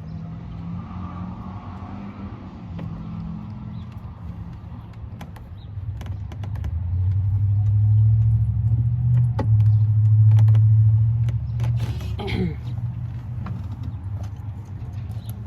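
Scattered sharp clicks and light metallic ticks from work on a pickup truck's door with a flathead screwdriver, over a low steady hum that swells about halfway through and then fades.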